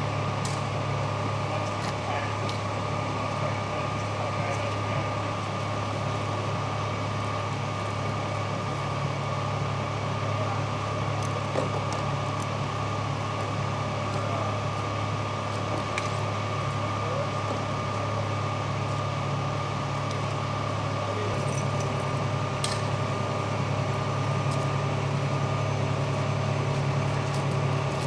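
Steady low drone of idling fire truck diesel engines, with a faint steady whine over it; the drone shifts slightly about three quarters of the way through.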